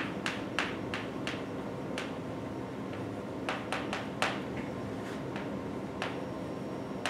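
Chalk tapping and clicking on a blackboard while words are written: a series of short, sharp taps at irregular spacing, over a steady low room hum.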